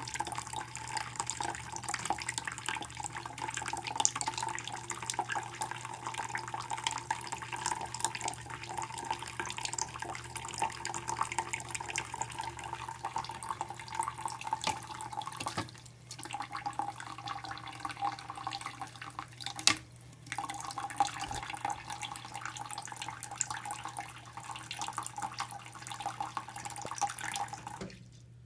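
Tap water running steadily into a plastic dish in a sink and splashing. It dips briefly twice around the middle and cuts off near the end.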